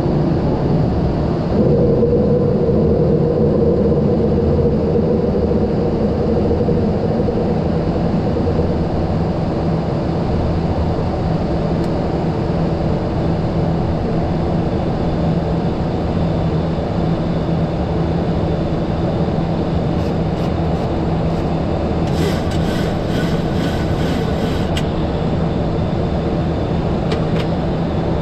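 Boeing 737-800 flight deck in the climb after takeoff: steady engine and airflow noise with a low hum, and a mid-pitched tone that fades out over the first several seconds. A few light clicks come near the end.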